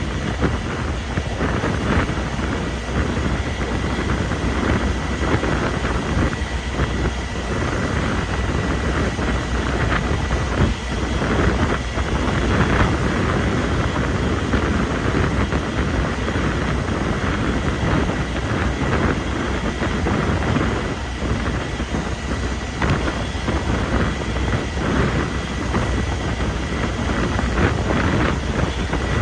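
Strong wind buffeting the microphone, a loud gusting rumble and rush that rises and falls in waves, with a faint steady high tone running under it.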